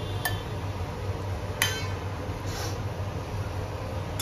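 Two light clinks of kitchen utensils or dishes, a little over a second apart, the second louder and ringing briefly, over a steady low hum.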